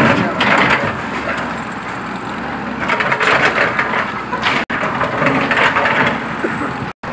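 Excavator bucket breaking into a brick and concrete-block wall: masonry cracking and crunching, with rubble falling, in three bursts: at the start, about three seconds in, and about five seconds in.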